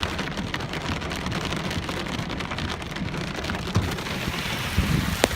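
Rain falling steadily, a continuous hiss dotted with many small drop ticks, and one sharp click just before the end.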